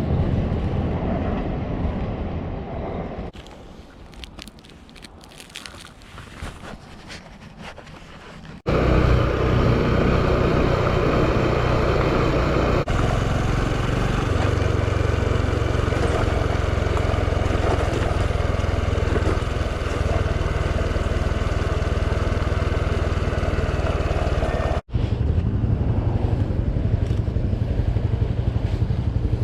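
Honda Super Cub's small single-cylinder four-stroke engine running while riding, with wind noise on the microphone. The sound drops much quieter from about 3 to 9 seconds in, then comes back loud and steady, with a sharp break near the end.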